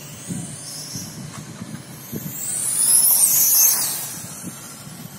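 1/5-scale RC motorcycle passing close by: a high-pitched motor whine that swells to its loudest about three seconds in, then fades as the bike moves away.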